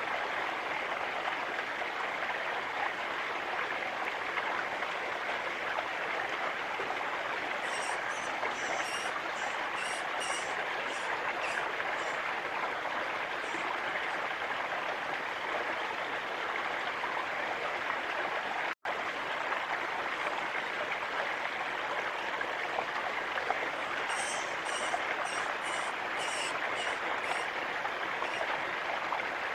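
Steady rushing noise of running water, like a stream. Two quick runs of high, thin bird chirps come through it, the first about eight seconds in and the second about twenty-four seconds in. The sound cuts out for an instant a little past the middle.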